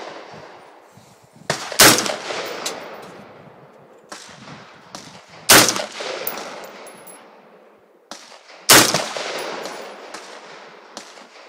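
AR-15 rifle fired three single shots about three and a half seconds apart, each sharp crack trailing off in a long echo. Fainter cracks come just before each of the loud shots.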